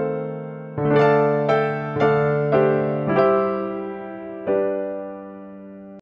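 Outro background music on electric piano: chords struck about every half second, then one last chord about four and a half seconds in that rings and fades.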